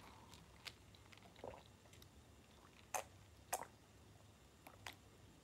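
Near silence, broken by about five faint, short clicks spread through it.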